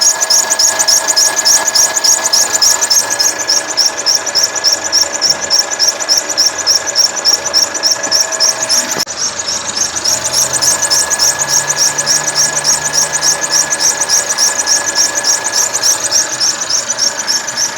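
Mercedes-Benz C180 W204 1.6 turbo engine running with a rapid, regular high-pitched chirping, about three to four a second, over the engine's steady tone. The noise is the sign of a worn, aged original drive belt, not the turbo.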